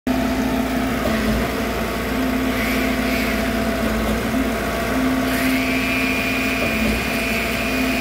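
Concrete mixer pump running steadily while pumping concrete through its delivery hose. A low tone in the machine's sound drops out and returns every couple of seconds, and a high whine comes in about five seconds in.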